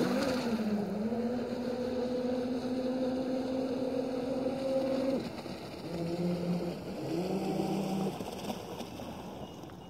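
Radio-controlled model boat's motor running at a steady pitch for about five seconds, then two short runs at a lower pitch before it fades away.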